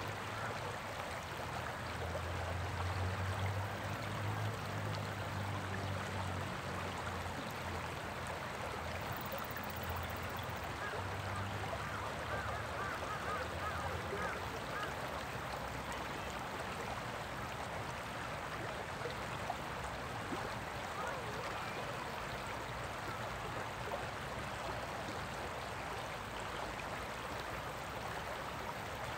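Shallow stream rapids rushing steadily over rocks. A faint low hum runs under the water for roughly the first twelve seconds.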